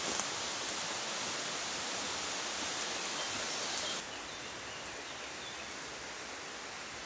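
Steady rushing hiss with no distinct events, stepping down a little in level about four seconds in, with a faint click just after the start.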